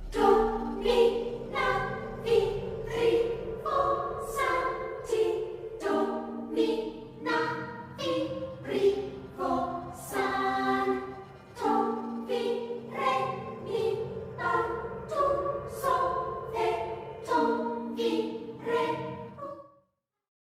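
A choir singing a piece of music in a steady rhythm, about two sung syllables a second, with sharp consonants on each syllable. It cuts off near the end.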